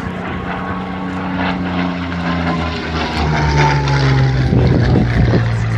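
Hispano Buchón's Rolls-Royce Merlin V12 engine running as the propeller fighter flies past. The engine note drops in pitch about three seconds in and again a little later as it grows louder.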